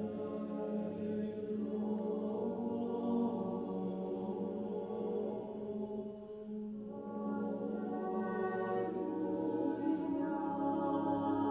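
Mixed choir singing with a string orchestra in slow, held chords. The sound thins briefly about six seconds in, then a fuller chord comes back in, with higher voices joining near the end.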